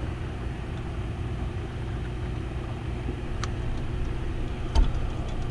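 A steady low machine hum, like a motor running, with a light click past the middle and a knock near the end.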